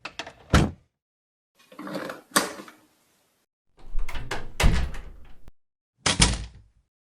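Four doors shut one after another, each a short click or latch rattle ending in a solid thud; the third closing is the longest.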